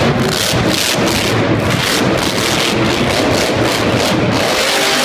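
Grave Digger monster truck's supercharged V8 running loud and hard, a dense rough rumble that pulses a few times a second.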